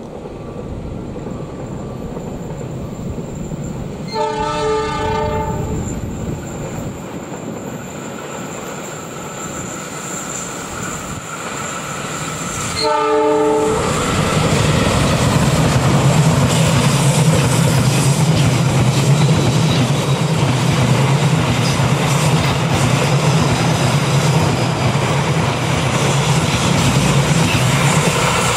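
Diesel locomotive of a passenger train sounding its multi-tone horn twice, about four and thirteen seconds in, each blast a second or so long. The locomotive then passes close with a steady engine drone, followed by the rolling wheel noise of its coaches on the rails.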